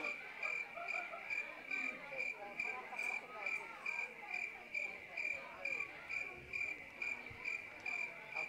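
Recorded cricket chirping played as a night-time sound effect through the PA, an even, steady rhythm of about three high chirps a second, with a low murmur of the audience underneath.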